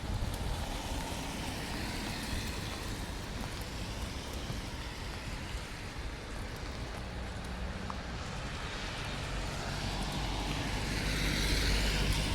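Rain falling, with a vehicle driving past on the wet road. Its tyre hiss swells and grows loudest near the end.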